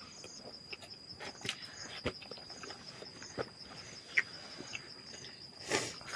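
Insects trilling steadily at a high pitch, with scattered clicks and knocks and a short rustle near the end.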